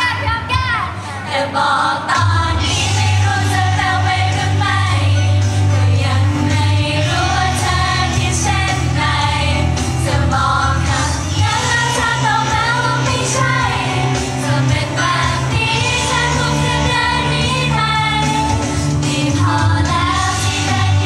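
Thai idol pop song performed live: a girl group singing into handheld microphones over music with a heavy bass line. The bass is out for the first couple of seconds and comes back in about two seconds in.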